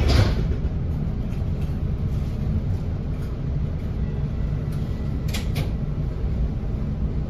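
Steady low rumble inside a TriMet MAX light rail car, with a thump right at the start and two sharp clicks about five seconds in.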